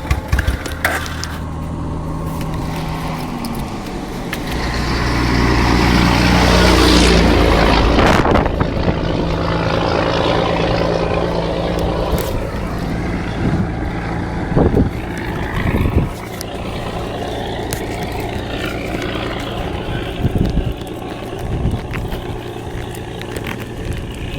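Suzuki Intruder 800 chopper's V-twin engine running through straight-through open exhaust pipes, idling with a loud, deep exhaust note. About four seconds in it is revved up, climbing for a few seconds before dropping back to idle near the eight-second mark.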